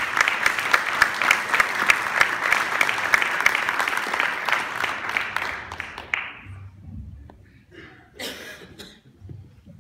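Audience applauding for about six seconds, then dying away, with a short burst of noise about eight seconds in.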